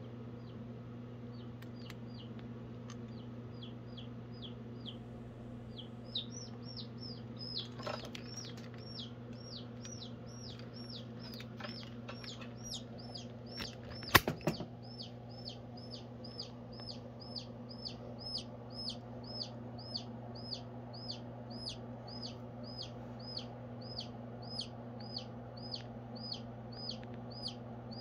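Baby chick peeping over and over, short falling peeps, sparse at first and then about two a second from about six seconds in, as the Goliath birdeater tarantula grabs it: the chick's distress calls. About halfway through there is a single sharp knock, the loudest sound.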